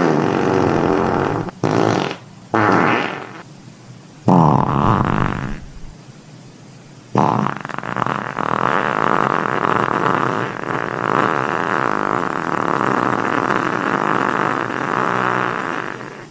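Series of fart sound effects: about four farts in the first six seconds, one with a falling pitch, then after a short pause one long drawn-out fart lasting about nine seconds.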